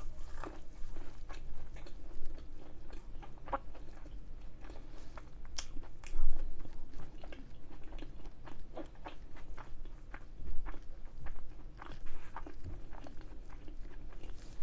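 Close-up chewing of a crisp fried samosa: a string of small crackling crunches from the pastry as it is chewed, the loudest about six seconds in.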